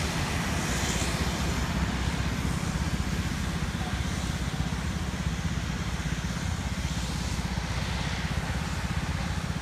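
Wind buffeting the phone's microphone in a steady, fluttering rumble, over the distant even drone of a small twin-turboprop commuter plane's engines as it taxis out for takeoff.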